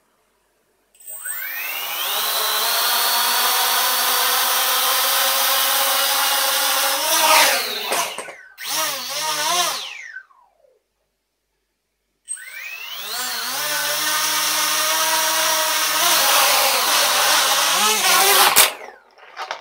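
Small home-built quadcopter's four electric motors and propellers spinning up with a rising whine, holding a steady buzzing hum, then wavering in pitch as the throttle is worked before stopping. After a pause they spin up again, and near the end a sharp knock comes as the tethered craft tips over.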